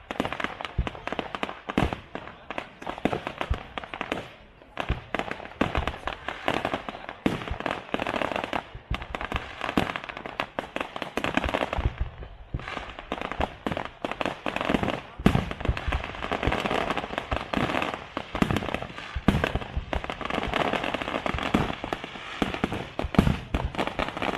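Fireworks display: a rapid, dense run of sharp bangs from bursting shells, with brief lulls about four and twelve seconds in.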